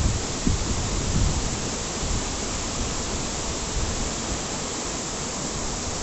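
Waterfall pouring into its pool: a steady, even rush of falling water.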